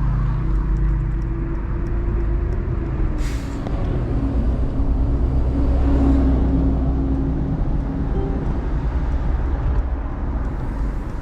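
Mercedes-Benz E220d's 2.0-litre four-cylinder diesel engine and road noise while driving with the top down, a steady low rumble under a humming engine note that dips slightly in pitch about two seconds in. A brief hiss cuts in about three seconds in.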